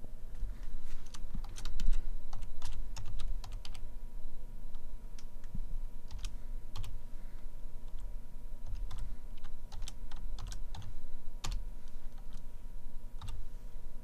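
Typing on a computer keyboard: irregular runs of key clicks, over a steady low hum.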